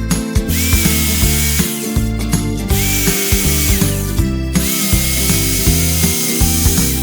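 Background music with a steady beat, over which a cordless drill-driver runs in three bursts of a second and a half to two and a half seconds each. Its motor whine rises at each trigger pull, then holds and cuts off, as when driving deck screws.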